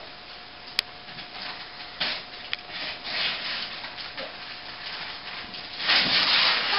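Christmas wrapping paper being torn and crinkled off a large gift box, in short rips that build to a long, loud tear near the end.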